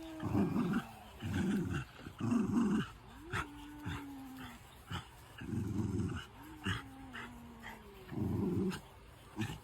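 A cat growling in short, low, rough bursts, broken twice by a drawn-out low yowl that rises and then slowly falls.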